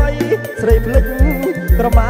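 Khmer ok kadong dance music from a live band, instrumental between sung lines: a steady kick drum about four beats a second under a bass line and a wavering, ornamented lead melody.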